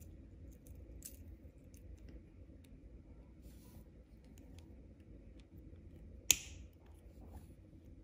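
Faint scattered clicks and taps of steel chain-nose pliers working a small metal jump ring, with one sharp, louder click about three-quarters of the way through.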